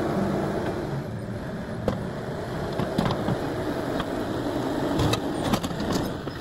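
Tractor engine running as the front-end loader works the ground, with scattered clanks and knocks.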